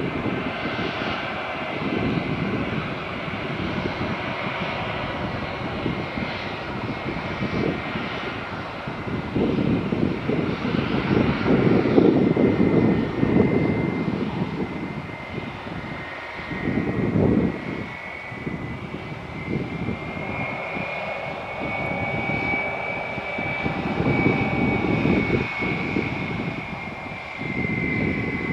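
Airliner engines running: a steady high whine that rises a little in pitch past the middle and falls back near the end, over an uneven, surging low rumble.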